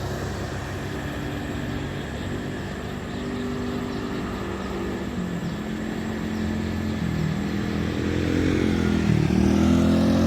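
Engine of a heavy road vehicle drawing closer, getting steadily louder over the last few seconds. Its pitch dips and then climbs again near the end.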